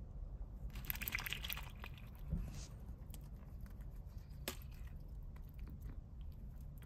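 Call duck drinking from a cup of ice water: a short burst of splashing and bill clicking in the icy water about a second in, then a thump and a single sharp click, over a low steady hum.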